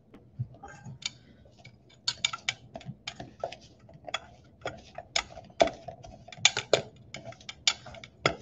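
Pastry cutter's metal blades clinking against a stainless steel mixing bowl in quick, irregular strikes, starting about two seconds in, as cold butter is cut into a brown sugar, flour and cinnamon streusel mix.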